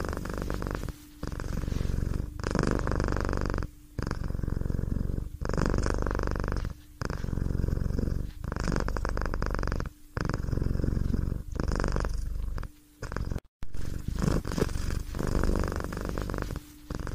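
A domestic cat purring close to the microphone, in an even rhythm of breaths about every second and a half.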